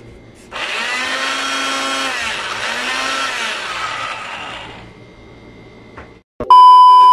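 Moulinex countertop blender motor whirring as it chops chunks of carrot, watermelon and banana. It starts about half a second in, runs for about four seconds, then winds down. Near the end comes a loud, steady electronic beep.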